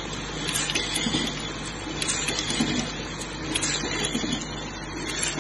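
Automatic LED bulb holder pin assembly machine running: a steady hum under frequent, irregular sharp clicks and clacks as the tooling works and the holders move along the track.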